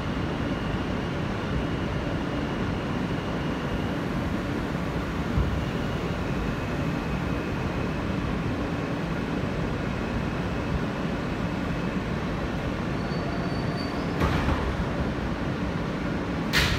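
Steady rumble and hum inside an R160 subway car, with a faint high whine that sags slightly in pitch during the first few seconds. Two sharp knocks come near the end.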